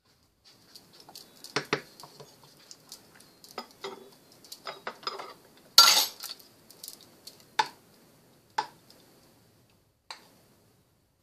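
A metal ladle and a wooden spatula clinking and knocking against a saucepan and a small porcelain dish as thick sauce is scooped and served, in scattered clicks with one sharp knock about six seconds in and a few lone clinks after.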